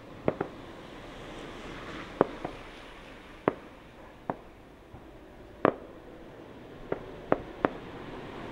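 Fireworks shells bursting in the sky: about ten sharp bangs at uneven intervals, some in quick pairs, each with a short echo, over a faint steady background hiss.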